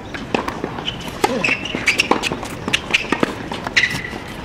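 Tennis balls struck by racquets and bouncing on a hard court during a rally, a series of sharp pops.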